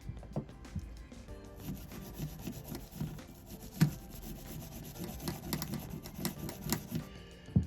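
Rhythmic hand scrubbing strokes, about three a second, with a sharp knock about four seconds in and another near the end, over faint background music.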